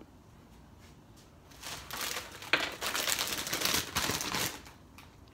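A bag of Doritos tortilla chips crinkling as it is handled and crushed, a dense crackly burst starting about a second and a half in and lasting about three seconds.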